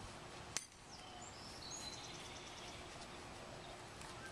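Quiet outdoor ambience with birds chirping, and a single sharp click about half a second in.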